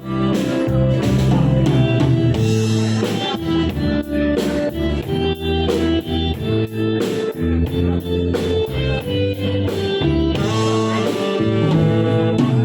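Instrumental introduction of a pop ballad backing track, with guitar and a steady drum beat, before the singing comes in.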